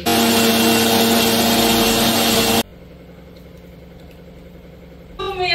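A loud electric motor running with a steady whine over a rushing noise, which cuts off abruptly about two and a half seconds in.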